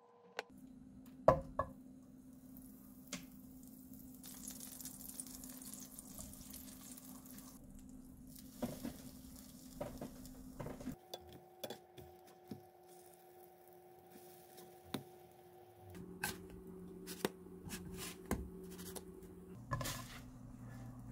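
Egg-soaked bread frying as French toast in a nonstick frying pan, with a sizzle that is strongest early on. Sharp clicks and taps of chopsticks and a spatula against the pan come over a steady low hum.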